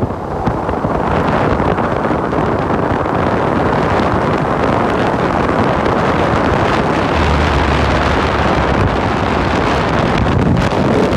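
Strong gusty wind buffeting the microphone, a loud steady rush.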